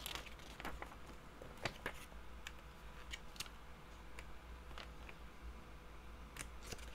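Faint, scattered light clicks and rustles of snack packets being rummaged through in a box, over a faint low hum.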